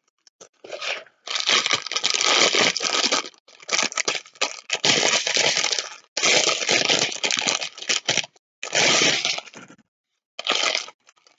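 Clear plastic bag of diamond-painting rhinestones being handled and crinkled, a crackling rustle in a string of bursts with short pauses between them.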